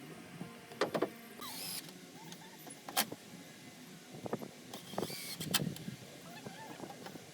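Decking work on composite boards: several sharp knocks and two short whirrs of a small power tool's motor, typical of a cordless driver sinking deck screws.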